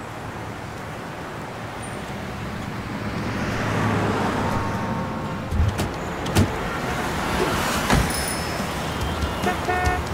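A rushing swell of noise builds over the first few seconds, then a series of sharp hits and clicks follows, the loudest about six and eight seconds in, with quicker clicks near the end.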